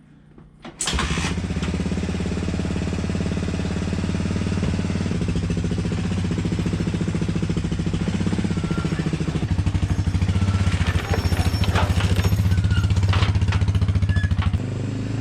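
An engine starts about a second in, after two brief sounds just before it catches, then idles steadily with an even, rapid firing pulse.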